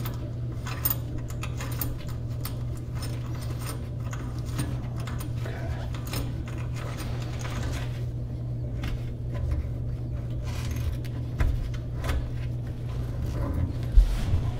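Kitchen faucet's metal retainer clip being spun by hand up the greased threaded shank under the countertop: a run of small irregular clicks and rattles over a steady low hum, with a louder thump near the end.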